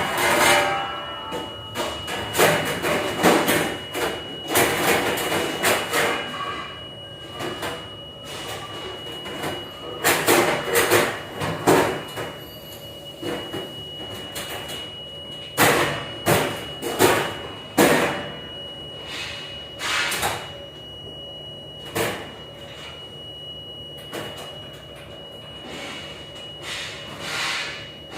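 Dishes, trays and racks clattering and banging in irregular bursts during dishwashing work. A steady high-pitched machine whine runs underneath.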